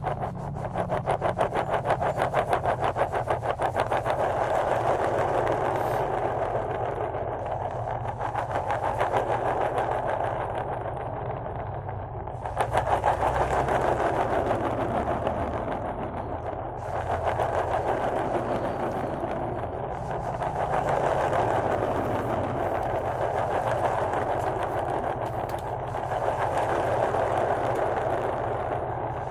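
Marbles rattling and rolling in the cups of a congklak board: a dense, rapid clatter that swells and fades in waves, with a louder burst about halfway through.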